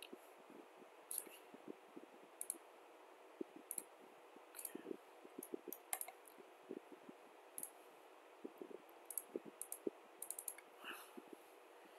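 Faint, irregular clicks of a computer mouse, a few of them close together near the end.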